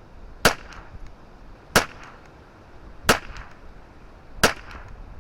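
Ruger 10/22 with a 20-inch KIDD barrel firing Eley Contact subsonic .22 LR, four evenly paced shots about 1.3 seconds apart. Each shot is followed by a fainter tick about a quarter second later, with a light wind hiss underneath.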